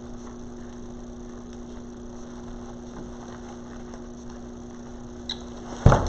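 Steady electrical hum, then a single loud thump near the end as the beehive decoration drops off the wreath.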